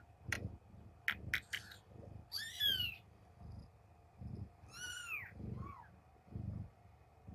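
A newborn kitten mewing in high cries that rise and fall, twice, with a short squeak after the second, while it is being woken to nurse. Under it a mother cat purrs low, swelling and fading about once a second. A few sharp clicks come in the first second or so.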